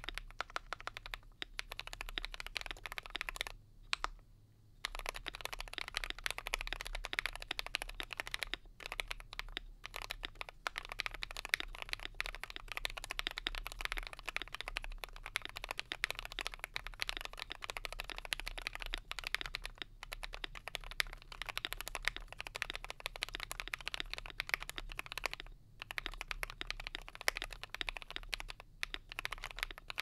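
Fast typing on an Akko Mod007 mechanical keyboard with lubed KTT Kang White linear switches, an FR4 plate, plate and case foam, PE switch pads, a two-layer tape mod and EPBT keycaps: a dense stream of key clacks, with a short pause about four seconds in.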